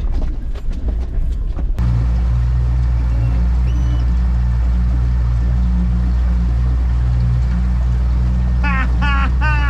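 A four-wheel drive's uneven cabin rumble on a rough track, which stops abruptly after about two seconds. Then a brand-new four-stroke outboard motor runs steadily at cruising speed, driving a 4.5-metre aluminium tinny, with the rush of water and wind.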